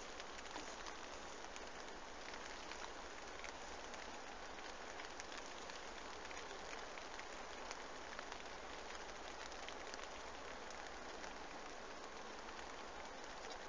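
Steady rain, heard from inside a fishing bivvy: a constant hiss with many small drop taps scattered through it.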